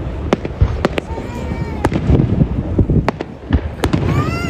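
Fireworks display: a rapid, irregular series of sharp bangs and crackles from bursting shells, with a rising whistle near the end.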